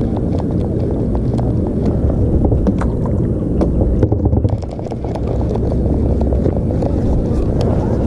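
Wind buffeting the microphone as a steady low rumble, with scattered small clicks and knocks. The rumble drops briefly about four and a half seconds in.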